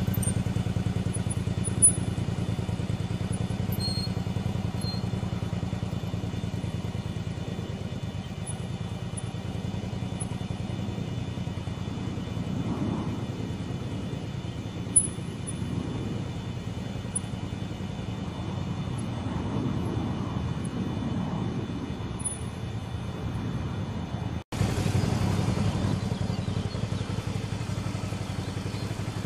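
Suzuki V-Strom 650's V-twin engine running at low speed through tight cone maneuvers, its note rising and falling with the throttle.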